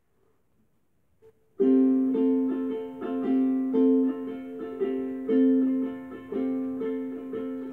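Ukulele strummed in a steady rhythm of chords, about two strums a second, as the introduction to a song. The playing starts about a second and a half in, after near silence, and rings in a small tiled room.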